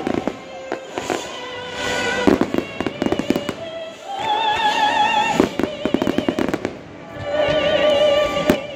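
Fireworks bursting and crackling in rapid volleys over live classical music with long held notes carrying vibrato.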